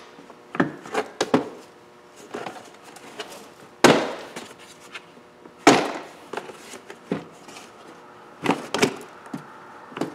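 Hard plastic knocks and clicks as the lower dash trim panel of a 2010 Infiniti EX35 is pulled and worked free of its clips. The knocks come singly and in small clusters, the loudest about four and about six seconds in.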